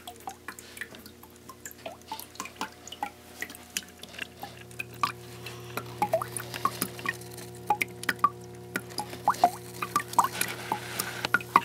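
Water dripping and splashing in irregular drops in a terrarium's built-in waterfall, the drops growing louder near the end, over a steady low hum.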